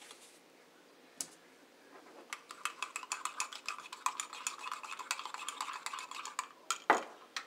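A metal spoon stirring in a ceramic mug, clinking rapidly and unevenly against the sides for about four seconds, then one louder clink near the end.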